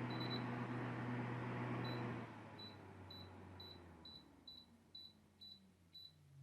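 MYCARBON MF07 turbo table fan running with a steady whoosh and motor hum. About two seconds in, the airflow noise drops suddenly and the motor winds down with a slowly falling hum. A run of short, high electronic beeps, about two a second, from the fan's control panel or remote.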